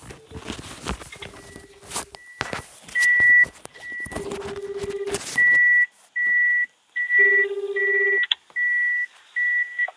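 Phone call ringing out, heard in a call recording: a buzzing ringback tone sounds for about a second three times, three seconds apart, while a louder, shrill beep repeats on and off over it. There are clicks and rustling in the first few seconds.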